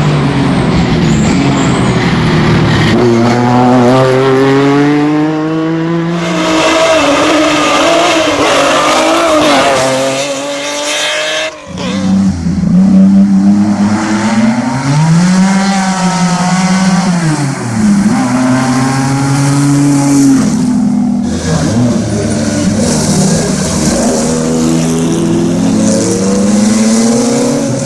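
Lancia Stratos rally car's Ferrari Dino 2.4-litre V6 driven hard, revs rising and falling again and again through gear changes and lifts. There is an abrupt break about halfway through where one pass gives way to another.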